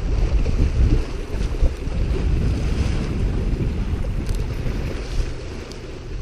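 Wind buffeting the microphone in a heavy, uneven low rumble, over small waves washing against the shoreline rocks.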